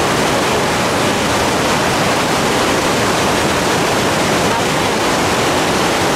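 Whitewater rapids rushing over boulders in a river: a loud, steady rush of water.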